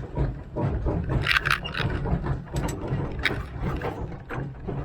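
1927 Vulcan 0-4-0T narrow-gauge tank steam locomotive working under throttle up a grade, heard from the cab: a pulsing low rumble with sharp metallic clanks and rattles scattered through it.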